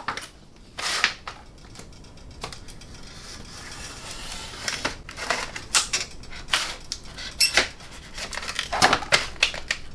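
Small steel sockets clicking and clinking as they are handled and pressed onto clips on a socket rail: a string of separate, irregular metallic clicks.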